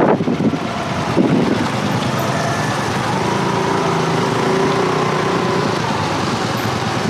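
Motor scooter engine running steadily while riding along a road, with wind and road noise. There is a single knock about a second in.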